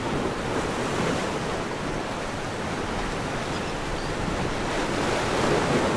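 Ocean surf washing onto a sandy beach: a steady rush of breaking waves that swells a little near the end.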